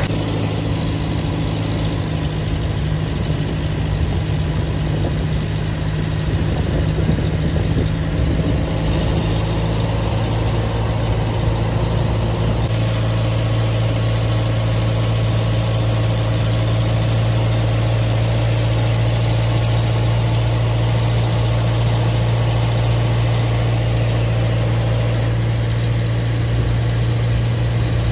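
An engine running steadily close by, a continuous low drone.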